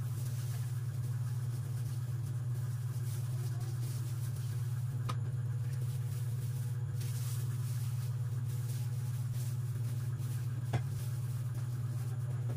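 A steady low hum, with faint rustling and two light clicks, one about five seconds in and one near eleven seconds.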